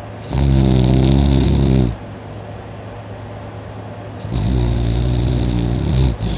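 A person snoring loudly in deep sleep with the mouth open: two long snores, each about one and a half to two seconds, with a quieter pause between them.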